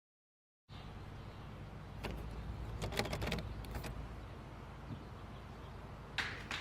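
Low steady hum with a few faint clicks and knocks, and a sharper knock near the end.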